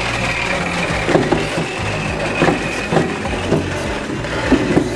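Pedal-driven Country Living grain mill grinding roasted peanuts into peanut butter: the burrs crunch the nuts with irregular sharp cracks about every half second over a steady mechanical drone.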